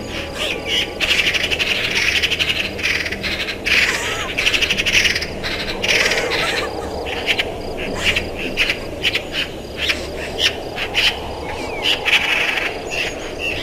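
Birds and insects chirping in repeated short bursts, over a low steady hum.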